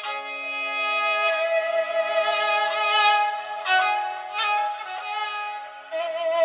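Kamancheh (Persian spike fiddle) played solo with the bow, improvising in the Dashti mode: long sustained notes, with a few quick note changes a little past halfway.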